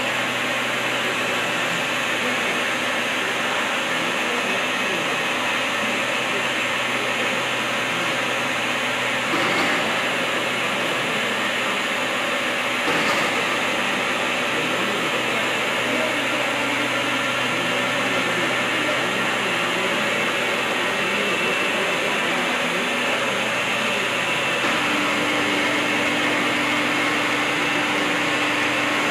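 CNC threading machine running: a steady motor hum and whir, with two short knocks about a third of the way in and a steady tone joining near the end.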